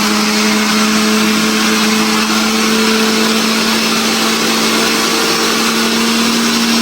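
Electric mixer grinder (mixie) running steadily as it grinds chutney, a loud motor hum whose pitch creeps slightly upward.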